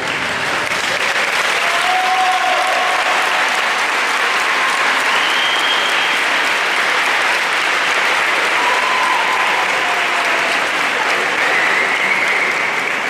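Audience applauding steadily, with a few short calls rising over the clapping.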